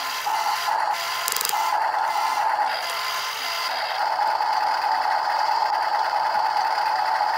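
Radio-controlled model excavator running: a steady high whine from its small electric motor, dropping out briefly a couple of times and easing off for about a second midway, over a constant mechanical scraping clatter.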